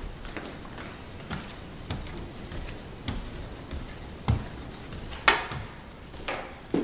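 Footsteps climbing bare wooden stairs stripped of their carpet, then walking on a bare plywood subfloor: a series of hollow knocks about two a second, the loudest about four and five seconds in.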